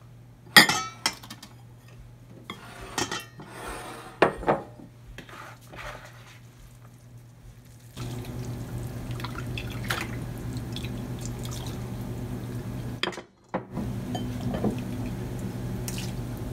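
Ceramic bowls knocking and clinking on the counter and against a colander as noodles are portioned into them, then broth being ladled into the bowls with splashing and dripping. A steady low hum comes in about halfway.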